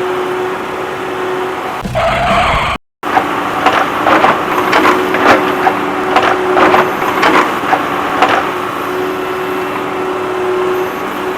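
A steady motor-vehicle engine sound with a steady hum. It breaks off briefly just before three seconds in, then resumes with a quick run of sharp knocks and clatters lasting about five seconds.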